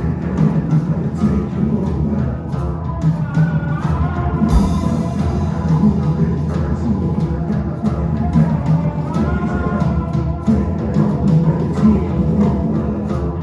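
Live rock band playing loud, with a heavy low end and steady drum hits; a cymbal crash comes about four and a half seconds in.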